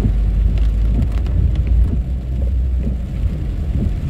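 Low, steady road and engine rumble inside a car's cabin as it drives along a rain-soaked street, with a few light taps of rain on the windshield. The deepest part of the rumble changes about two seconds in.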